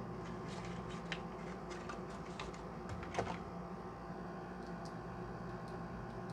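Scattered light clicks and taps from handling a tactical laser-and-light unit and the pistol, with a louder cluster about three seconds in, over a steady low hum.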